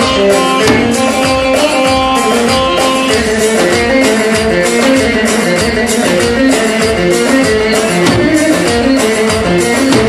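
Folk dance music with a plucked-string melody moving in short stepped phrases over a steady drum beat.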